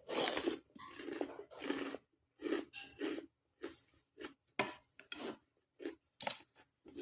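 A person chewing crunchy raw lalapan vegetables close to the microphone: about a dozen crunches at an uneven pace.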